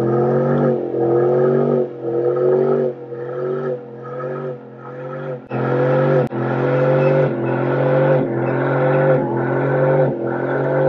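Chevrolet Silverado pickup's engine held at high revs during a one-wheel burnout, a rear tire spinning in place on the pavement. The engine note surges and dips about once a second, easing off for a few seconds early on before climbing back up.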